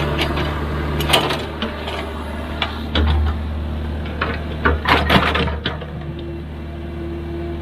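Excavator's diesel engine running steadily, with a few sharp metal clanks and knocks from the working machine, several of them close together about five seconds in.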